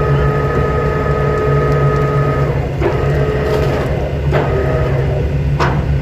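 Steady engine hum with a constant low drone and a few steady higher machine tones, broken by a few faint knocks.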